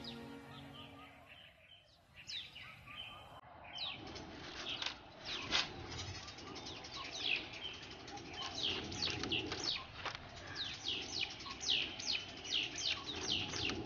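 Music fades out over the first second or two. Then many small birds chirp in a dense chatter of short, quick, falling calls, several a second.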